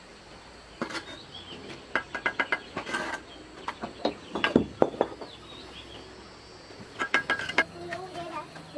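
Irregular clinks and knocks of hard objects handled together, some with a short ringing, coming in quick runs about a second in, around two to three seconds in, between four and five seconds, and again near the end.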